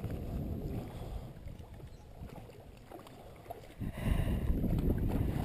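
Low rumbling wind noise on the body-worn camera's microphone. It eases off in the middle and swells again about four seconds in.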